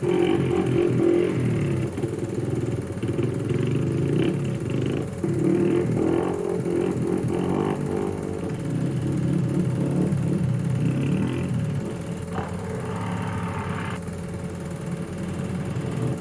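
A 250 cc four-stroke single-cylinder trail bike engine running under throttle, its pitch rising and falling as it is revved.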